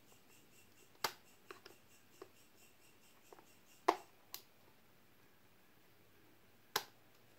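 Irregular sharp plastic clicks, about eight of them, the loudest about one, four and seven seconds in, as a small flat-head screwdriver pries at the edge of an HP 1000 laptop's snap-in keyboard.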